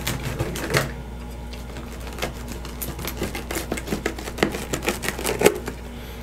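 Pizza cutter wheel crunching through a baked pizza crust, a run of irregular sharp clicks and crackles with the loudest about five and a half seconds in.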